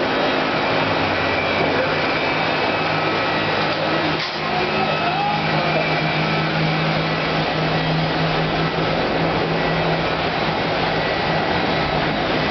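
Shop machinery running with a steady whir and a constant low hum.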